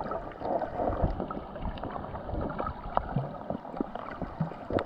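Shallow seawater sloshing and gurgling close to the microphone, with scattered small clicks and splashes.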